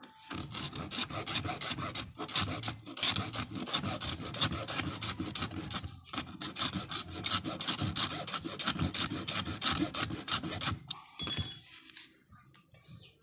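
A bare Lenox hacksaw blade, held in the hand without a frame, sawing into the black case of a small box capacitor with rapid back-and-forth scraping strokes. The sawing pauses briefly about halfway through and stops a couple of seconds before the end.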